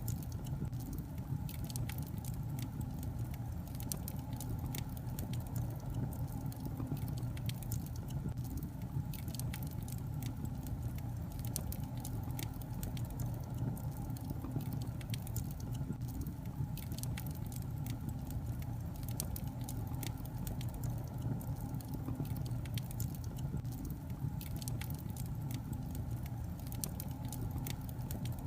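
Wood fire of burning logs crackling steadily, with many small sharp pops and snaps over a low rumble.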